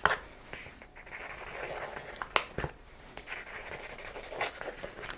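Close-miked scratching and rustling, with a few sharp taps and clicks, one at the start and two about two and a half seconds in.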